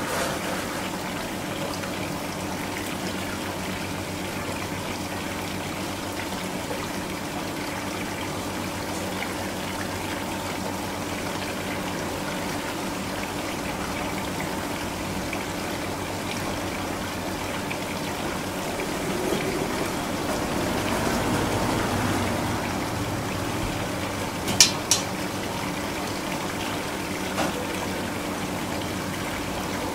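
Water running steadily, with a faint steady hum underneath and two sharp clicks in quick succession late on.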